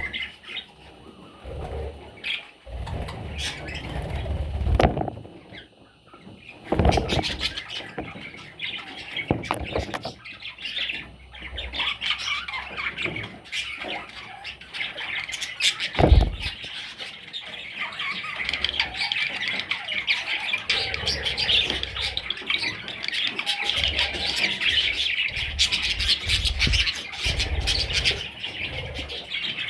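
Budgerigars chirping and chattering, the warbling growing busier and steadier through the second half. Scattered thumps and knocks break in, one loud knock about halfway through.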